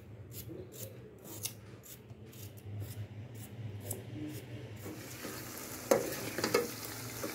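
A kitchen knife cutting a raw potato into small cubes in a quick run of crisp cuts, about three a second. About five seconds in, this gives way to chopped onion, tomato and green chilli sizzling in an aluminium pot, with a spoon stirring and knocking against the pot.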